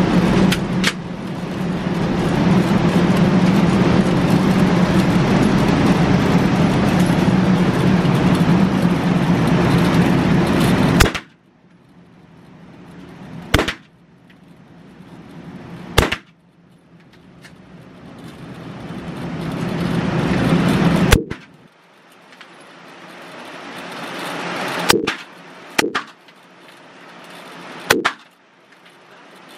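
Seven handgun shots in an indoor shooting range, spaced two to five seconds apart and starting about eleven seconds in. Before the first shot there is a loud, steady background noise.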